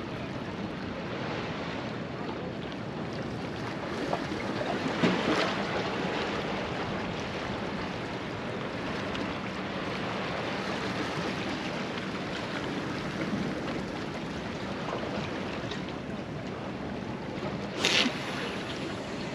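Sea washing against the boulders of a rock jetty, with wind on the microphone. It swells a little about five seconds in, and there is one brief sharp sound near the end.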